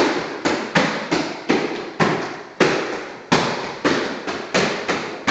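Boxing gloves smacking into focus mitts in quick combinations, about a dozen sharp slaps each with a short echo off the bare room.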